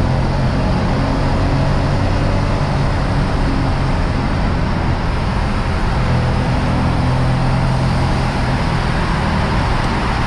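Lexus RC F's 5.0-litre V8 running at steady, moderate revs while cruising, with tyre and road noise underneath. The engine note shifts slightly a few times but never rises into hard acceleration.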